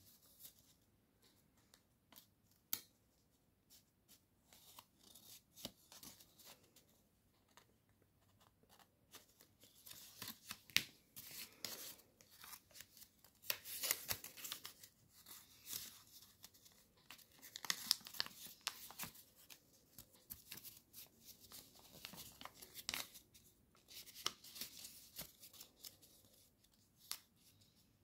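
Faint crinkling and rustling of a sheet of paper being folded and creased by hand, in short scattered bursts that grow busier from about ten seconds in.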